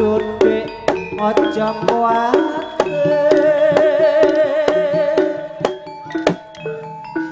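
Live East Javanese jaranan ensemble music: kendang hand drums and struck gamelan metallophones playing a quick rhythm, with one long wavering held note from about three seconds in for two seconds.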